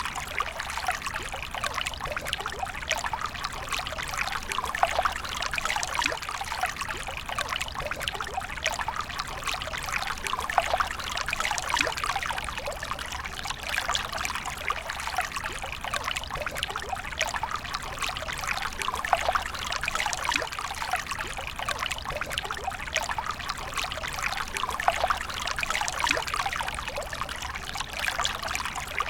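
Water pouring and trickling steadily, with a continuous fine splashing patter and no pauses.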